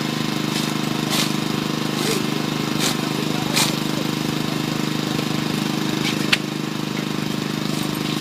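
An engine running steadily at one constant pitch, with sharp clicks and knocks of rescue work on the wrecked car now and then, the sharpest a little after six seconds in.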